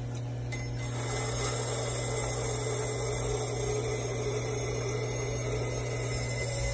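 Bench grinder motor running with a steady hum while a steel karambit blade is held against the spinning wheel. A steady grinding hiss comes up about a second in.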